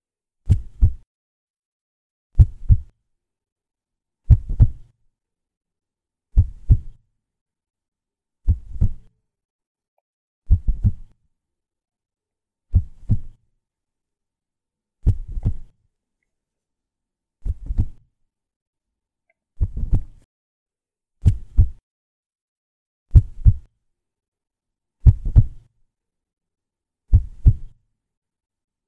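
Heartbeat sound effect: slow, low double thumps (lub-dub), about one beat every two seconds.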